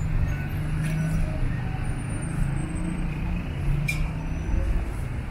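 Steady low rumble of vehicle noise, with one sharp click about four seconds in.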